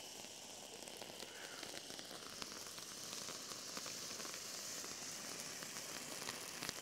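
Faint, steady hiss with scattered tiny crackles from a plastic firework tractor's spark fountain as it sprays sparks.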